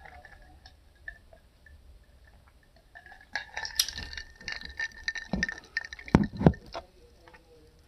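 Clinking and rattling of a drinking cup and dishes being handled during a meal, a dense run of clicks starting a few seconds in, with three dull knocks near the end.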